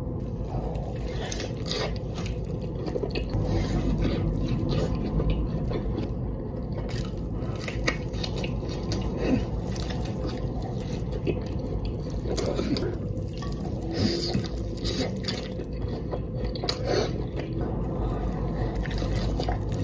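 A person biting into and chewing a burger close to the microphone, with many short irregular crackles and smacking sounds over a steady low hum.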